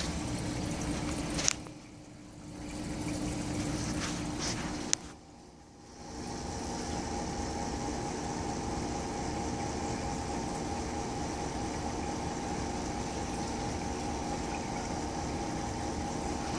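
Steady hum and water noise of aquarium pumps and circulating water, with two sharp clicks about a second and a half and five seconds in, each followed by a brief dip in level.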